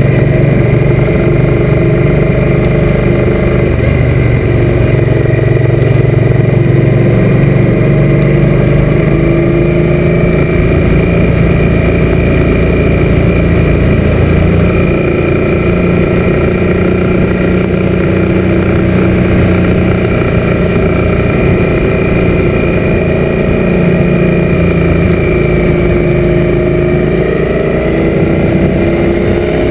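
Suzuki M800 V-twin motorcycle engine running steadily under way, with wind noise over the mounted camera; the engine note rises near the end as the bike accelerates.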